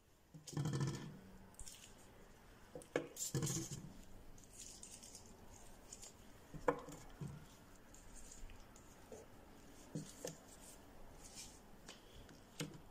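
Raw potato slices set down one at a time in the bottom of a stainless-steel pot: scattered light taps and clicks, with soft rustling between them.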